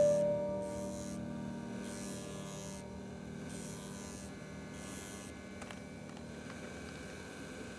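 Electric motor-driven abrasive wheel running with a steady hum, while a buffalo-horn pendant is pressed against it in short strokes that each give a burst of high hiss. The strokes stop about two-thirds of the way through and the motor hums on alone. A piano note from background music fades out at the very start.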